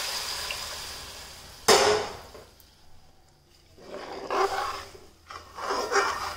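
Water poured onto hot oil-fried masala in a metal kadhai sizzles and fades, then a second sudden burst of sizzle about two seconds in dies away quickly. After a short lull, a metal slotted spoon scrapes and stirs around the pan in irregular strokes.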